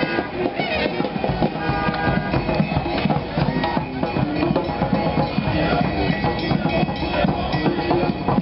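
Street brass band playing, horns over a drum section that beats through the whole stretch.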